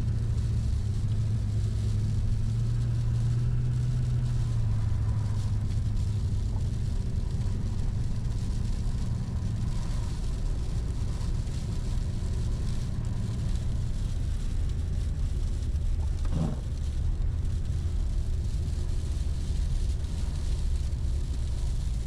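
Duramax turbodiesel pickup heard from inside the cab while driving: a steady low engine drone mixed with road noise. A brief rising chirp comes about sixteen seconds in.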